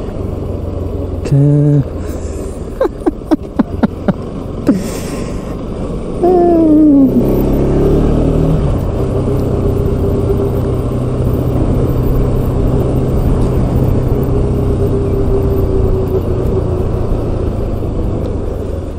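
Motorcycle engine running while riding along a rough country road. A few sharp knocks come between about three and five seconds in, and a short falling tone follows around six seconds. From about seven seconds the engine runs louder with a steady hum.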